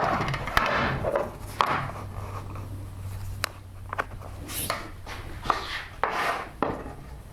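Workbench handling noise: scattered light knocks and clicks with rubbing and sliding, as wood pieces and tools are moved around.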